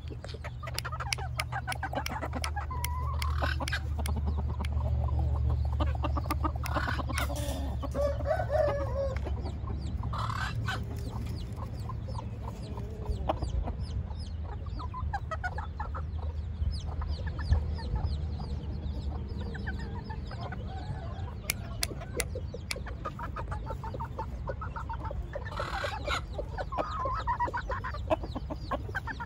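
Chickens clucking, with a rooster crowing a few times, over a steady low rumble.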